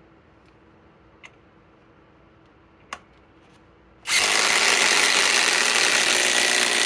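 Two cordless impact drivers, a SKIL PWRCore 20 and a Master Force Boost, hammering together as they drive 4-inch TimberLOK screws into wood. The loud, steady rattle starts about four seconds in, after a quiet stretch with a couple of faint clicks.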